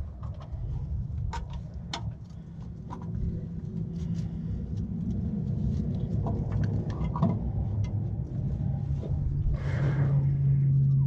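Hand tools clicking and clinking against metal as the starter mounting bolts are run in and tightened under the car. The clicks come at irregular intervals over a steady low hum that grows louder near the end.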